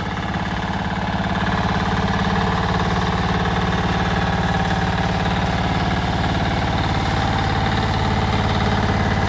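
Walking tractor's engine running steadily under load as its rotary plough cuts through the soil, growing a little louder over the first second or two.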